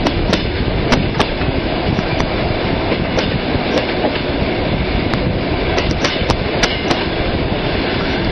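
Train wheels clattering over rail joints as a train rolls through a station: a steady rumble with irregular sharp clacks.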